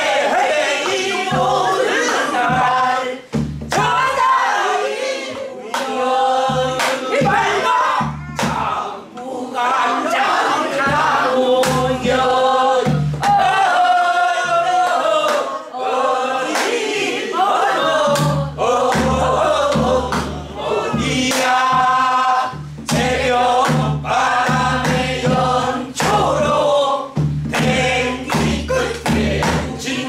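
A group of voices singing a southern Korean Namdo folk song together in unison, with buk barrel drums beating the rhythm in repeated low thuds under the singing.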